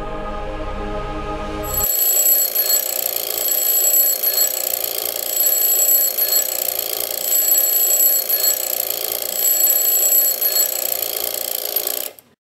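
Mechanical twin-bell alarm clock ringing continuously, cut off abruptly near the end as it is switched off. Before it, soft sustained music plays for a couple of seconds and stops as the ringing starts.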